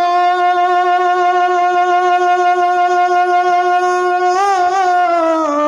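A man singing a naat, holding one long, level note for about four seconds, then wavering through a few ornamented turns in pitch.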